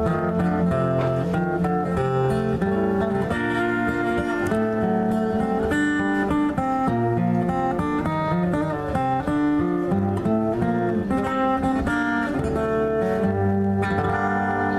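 Instrumental interlude of a ballad, led by acoustic guitar playing a run of plucked and strummed notes, with no singing.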